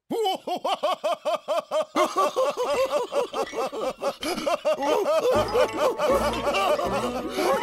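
Cartoon men laughing heartily, a fast even run of 'ha-ha' syllables. About two seconds in a second laugh overlaps it, and a low steady sound joins underneath near the end.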